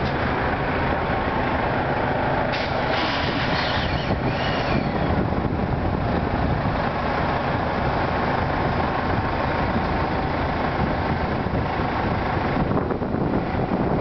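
Metro-North M3A electric multiple-unit train standing at the platform with a steady hum and rumble, and a hiss of air from its brakes about three seconds in. The train begins to pull away near the end.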